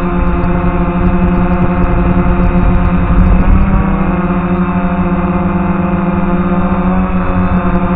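DJI F450 quadcopter's motors and propellers buzzing steadily in flight, picked up close by its onboard camera, the pitch shifting slightly about halfway through.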